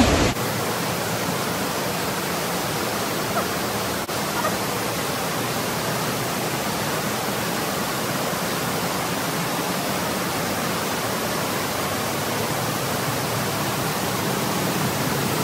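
Steady rushing of water from a cave waterfall, an even noise that holds at one level throughout.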